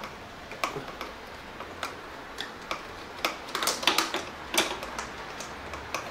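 Socket ratchet clicking as it is swung back and forth to undo a radiator mounting bolt: scattered single clicks, then a quicker run of clicks a little past the middle.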